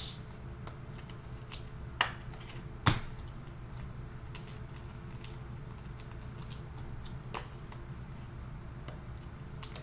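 Steady low hum with a few sharp clicks, the two loudest about two and three seconds in, as trading cards are handled on the table.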